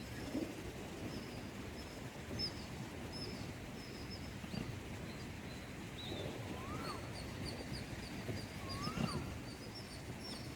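Wild birds calling outdoors. One bird gives a short whistled note that rises and falls, three times about two seconds apart in the second half, over a steady patter of thin high chirps and a low rustling background.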